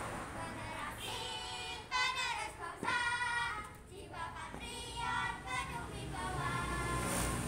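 A small group of girls singing a scout yell together in short chanted phrases.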